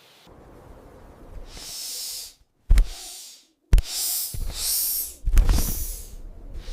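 Snake hissing: a run of short, breathy hisses, one after another, over a low rumble, with a couple of sharp knocks in the middle.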